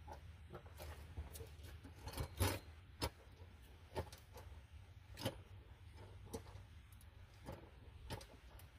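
Hand-operated bucket pump on a pail of gear oil being worked to fill a semi truck differential, each stroke giving a short sharp click, irregularly about one every half second to a second.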